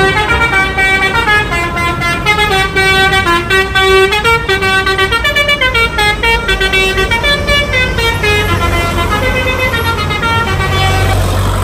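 Bus's Basuri telolet horn playing a long multi-note tune, its notes stepping up and down, over a low rumble. The tune stops near the end.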